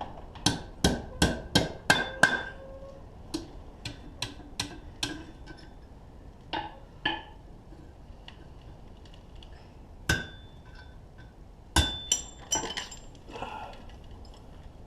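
Hand hammer striking a hot 1/4-inch steel round bar on the anvil horn, wrapping its end into a hook. It opens with a quick, even run of ringing blows, about two or three a second, then turns to lighter taps. A few scattered metallic clinks follow later.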